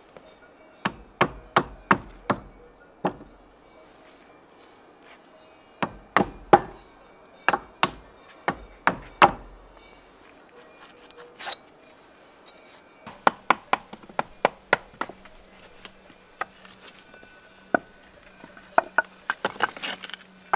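Hand hammer knocking wood and stone into place while patching a hole in a dry-stone wall: sharp knocks in runs of several quick blows, with pauses between the runs.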